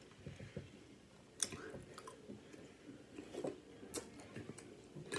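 Close-up chewing of crispy chicken salad: soft, wet mouth sounds with a few sharp crunchy clicks scattered through.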